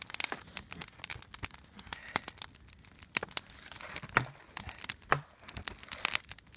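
Open wood fire of dry twigs and brush crackling, with many irregular sharp pops and snaps.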